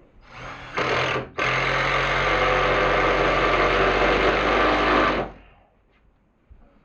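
Impact driver driving a screw: a short burst about a second in, a brief pause, then about four seconds of continuous running before it stops.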